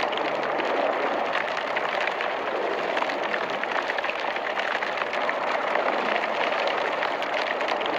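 Incinerator burning: a steady rushing noise with dense crackling throughout.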